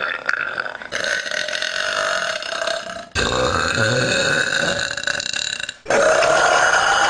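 Women's long, drawn-out burps, one after another, each cut off abruptly where the next clip begins, about four in all.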